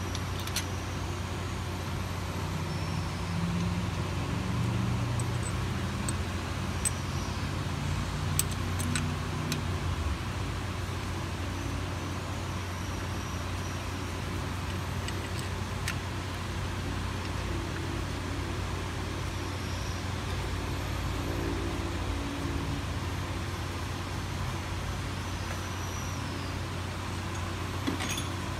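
Steady low background hum with a few sharp, light metallic clicks as the oil filter housing's 12 mm bolts are handled and threaded in by hand on a Honda J-series engine.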